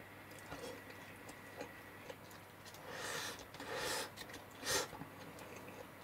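Quiet eating sounds: faint light clicks and taps, with three short breathy bursts of noise about three, four and nearly five seconds in.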